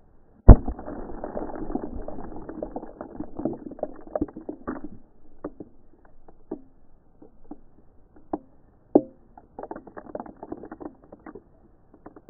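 A dry ice bomb bursting inside a stuffed teddy bear: one sharp, very loud bang about half a second in, then a dense clatter of falling debris that thins out into scattered ticks and knocks, with a second brief flurry later. The sound is dull and stretched, as if slowed down with the slow-motion picture.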